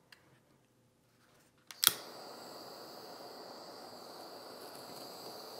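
Handheld butane kitchen torch lit with a sharp click of its igniter about two seconds in, after a near-silent pause. The flame catches at once and then runs with a steady high hiss as it melts and browns the sugar topping of a crème brûlée.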